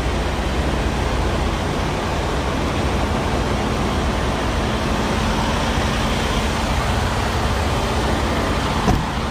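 Steady rumble of idling diesel truck engines with a constant hiss, and a short knock near the end.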